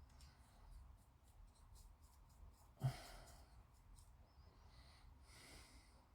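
Near silence: quiet room tone with faint small ticks, and one brief rush of noise about three seconds in.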